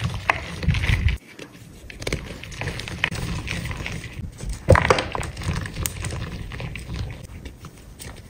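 Hydrophobic chalk being squeezed and crumbled by hand over a bowl: irregular soft crunches and fine crackling as the lumps break into powder. There are heavy low crunches in the first second and the loudest sharp crunch comes about halfway.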